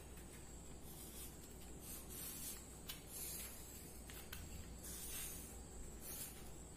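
Pencil scratching faintly on paper in short, uneven strokes while tracing an outline around a cutout.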